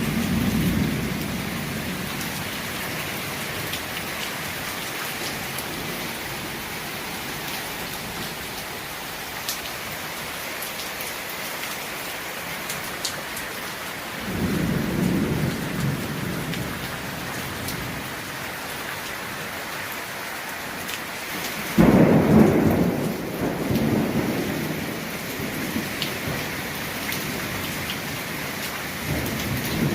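Heavy rain falling steadily through a thunderstorm. Thunder rumbles low near the start and again about halfway. About two-thirds of the way in, a sudden loud thunderclap rumbles on for a couple of seconds, and another rumble begins near the end.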